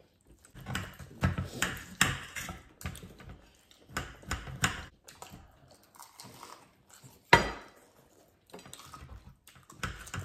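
Irregular clinks and scrapes of a knife and fork against a glass baking dish as grilled pork ribs are cut, mixed with chewing of crispy fried chicken. A sharp clink about seven seconds in is the loudest sound.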